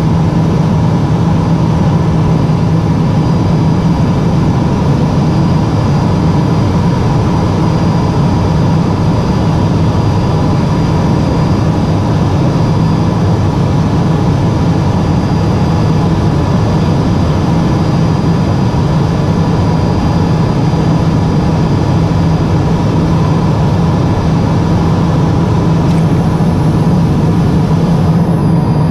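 Cabin noise of a Cessna P210 Silver Eagle's Rolls-Royce turboprop engine and propeller running steadily in flight, heard inside the cockpit, with a low drone and a faint steady higher tone above it.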